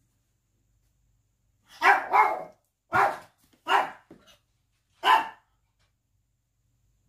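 A dog barking: about five short, loud barks, two in quick succession about two seconds in, then single barks roughly every three-quarters of a second.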